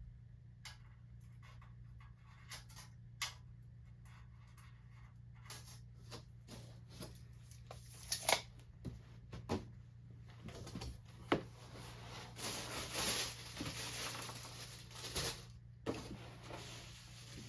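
Packaging being handled around a radiator: scattered clicks and rustling of cardboard and wrapping, thickening into a few seconds of continuous rustling past the middle, over a steady low hum.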